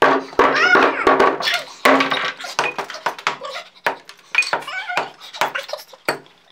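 Rapid, irregular hammer blows on a grey block on a wooden tabletop, breaking it into pieces, with chips clinking and clattering on the table. Many of the strikes ring briefly.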